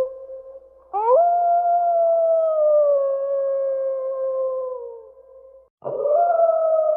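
Wolf howling: a long howl that sweeps up in pitch about a second in and then slowly sinks for about four seconds, and a second howl that rises sharply near the end.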